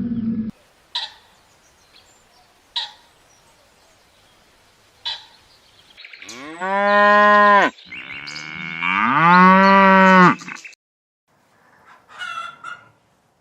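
Cow mooing twice: two long moos, each rising, holding and then falling, the second one longer. A few short clicks come before them, and a brief, higher animal call follows near the end.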